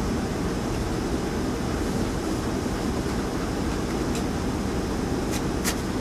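Steady low rumbling machinery noise with a few short clicks in the last two seconds.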